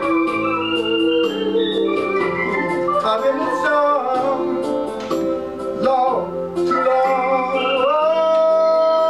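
Electronic keyboard played on an organ voice, holding chords over a steady hi-hat beat, with a man singing a slow line with vibrato over it.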